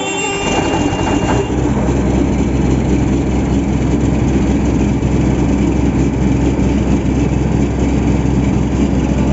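The diesel engine of a borewell rig's air compressor, just started and running steadily. A high whine over the first second and a half fades into the engine's steady running.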